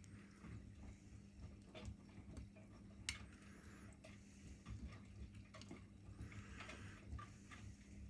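Miele front-loading washing machine working quietly between the main-wash spin and the first rinse: a steady low hum with scattered soft clicks and ticks and a few brief swishes of water and laundry in the drum.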